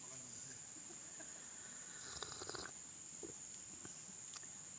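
Steady high-pitched insect chirring in the background, with a few faint clicks and rustles about halfway through and a single click near the end.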